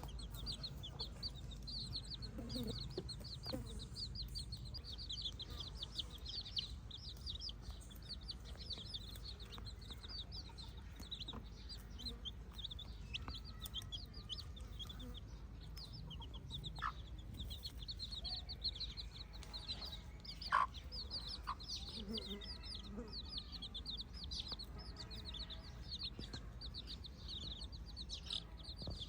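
Free-range chickens in a flock: rapid high-pitched chirping runs on throughout, with a few low clucks, over a steady low rumble. One short sharp sound stands out about two-thirds of the way through.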